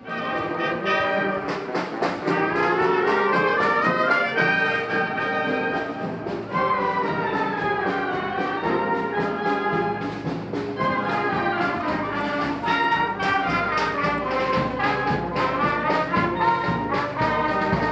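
Brass band music, with brass instruments carrying the tune.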